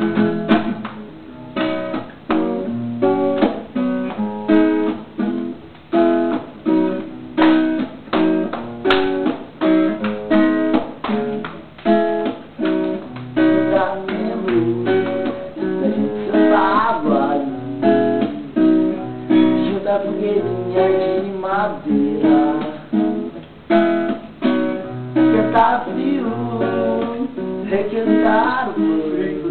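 Acoustic guitar strummed in a steady rhythm, with a voice singing along in places.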